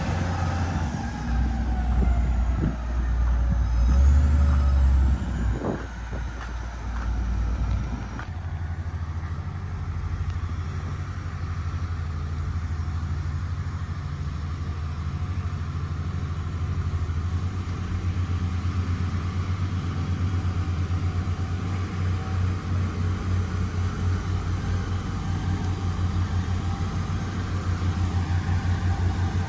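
HD850 motor grader's diesel engine running, louder and working with a few knocks and clatter for the first several seconds, then settling into a steady, evenly pulsing run.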